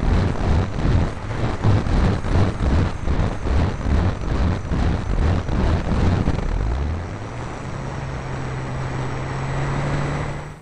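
Airflow and the electric motor and propeller of a ParkZone P-51D RC plane in flight, picked up by a small camera taped to its canopy, so wind on the microphone dominates. The noise pulses rapidly at first. About two-thirds in, a steady low hum rises in pitch and holds.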